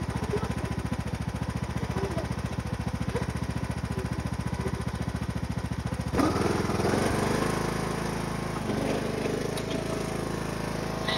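John Deere riding lawn tractor's engine running with a fast, even pulsing beat. About six seconds in the sound abruptly turns louder and fuller and the beat smooths out as the speed is raised.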